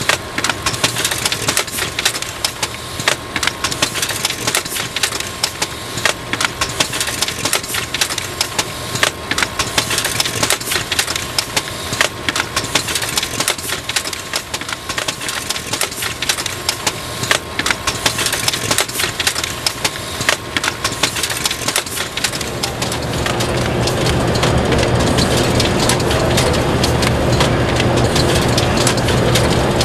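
Kern 515 EasyMailer mailing machine running at its reply-envelope inserting station, with a rapid, irregular clicking and clatter. About 22 seconds in, the clatter gives way to a steadier machine run with a low hum.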